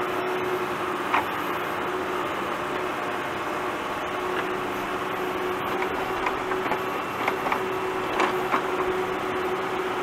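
Tractor engine running steadily while digging, with a few short knocks and clanks, one about a second in and a cluster of them later on.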